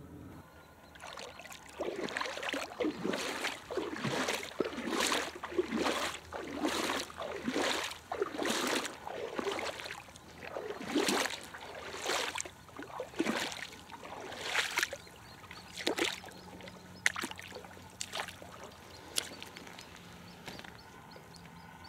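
Rhythmic splashing of water as someone moves through a shallow pond, a splash about every two-thirds of a second, then thinning out after about fifteen seconds into a few scattered drips and clicks.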